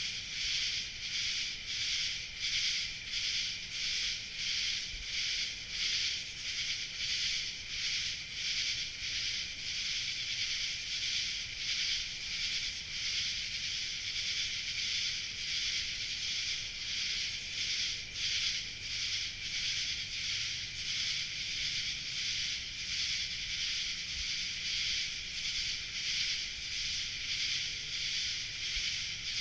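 Night insect chorus of cicadas and other singing insects: a steady, high-pitched shrill that pulses in rhythm, a little faster than once a second.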